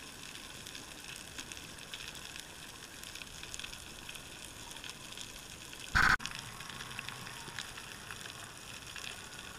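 Underwater reef ambience through a camera housing: a steady crackling hiss of many faint ticks. About six seconds in, a brief loud bump cuts across it.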